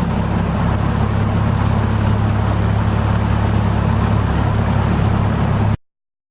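Cessna 172's engine and propeller running at a steady drone, cutting off suddenly near the end.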